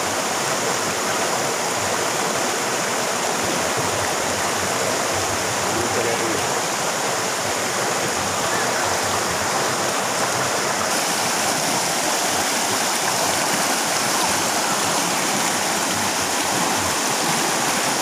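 Forest river running fast over rocks and shallow rapids, a steady rushing of water. The river is up after rain.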